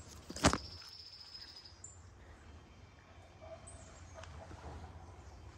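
A single sharp click about half a second in, followed by a thin high tone lasting about a second and a half. Garden birds chirp now and then over a low rumble.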